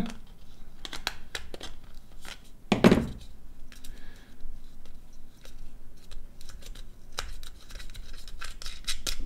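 Small clicks, scrapes and creaks of plastic as a hot-glued mini XLR socket is worked loose from a headphone earcup with pliers and fingers, with one louder thump about three seconds in.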